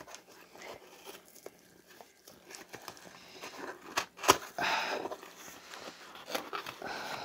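A heavily taped cardboard box being pulled and torn open: tape and cardboard crackling and tearing in short rustling spells, with one sharp crack about four seconds in.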